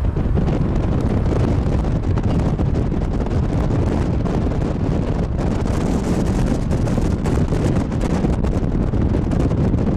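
Wind buffeting the camera microphone: a steady, loud, rumbling rush of noise.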